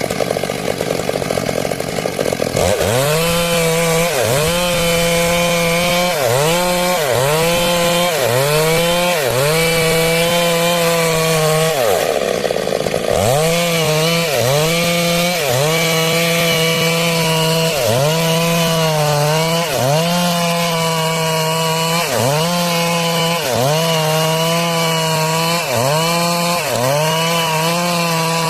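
Stihl MS 382 two-stroke chainsaw sawing timber into boards, its engine pitch dropping under load and recovering again and again, about once a second. It runs at steady full revs out of the cut for the first couple of seconds and briefly about twelve seconds in.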